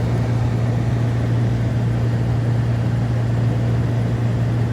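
A 2000 GMC Sierra's 5.3-litre V8 idling steadily after a cold start, heard from inside the cab as a constant low hum.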